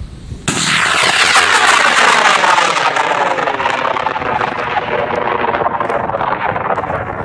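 High-power rocket motor igniting and lifting off: a sudden loud roar about half a second in, with a sweeping, phasing rush as the rocket climbs away, easing slowly.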